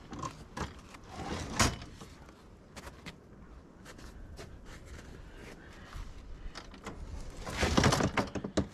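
Boots crunching and knocking on icy snow, with a sharp metal clank about one and a half seconds in. Near the end comes a louder clattering scrape as a large stainless steel pan is shifted on a plastic sled.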